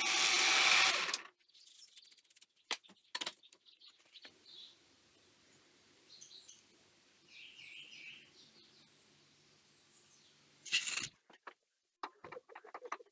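Welder tacking steel parts: a hissing, crackling weld burst of about a second and a half at the start and a shorter one near the end, with light metal clicks between. Faint bird chirps sound in the middle.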